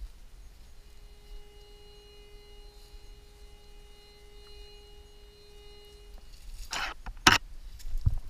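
White's TM-808 two-box metal detector sounding a steady humming tone for about five seconds, the signal of a buried metal target beneath the search head. Near the end come rustling steps on dry leaf litter and one sharp knock.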